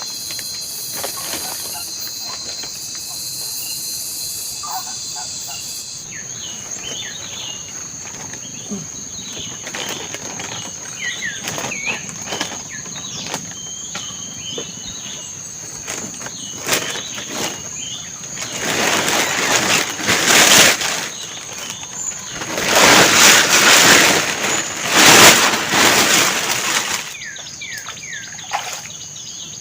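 Tropical forest ambience: a steady high insect drone with short bird chirps over it. Two loud bursts of rushing, rustling noise come in past the middle and are the loudest sounds.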